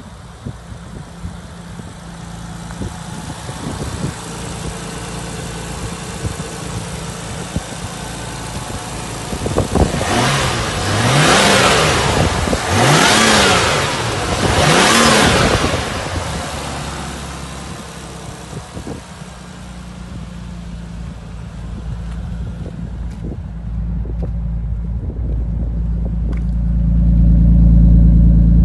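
Nissan Skyline R33 GTS-t's turbocharged RB25DET straight-six idling, revved three times one after another about ten seconds in, then settling back to idle. Near the end the idle comes through loud and low at the tip of its Kakimoto Racing exhaust.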